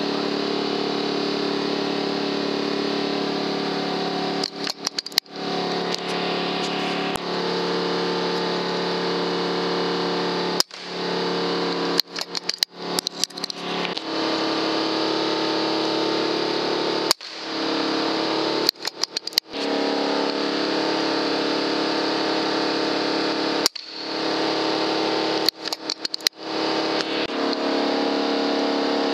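A steady mechanical hum made of several held tones, like a machine or engine running. Several times it drops out abruptly with sharp clicks and comes back at a slightly different pitch.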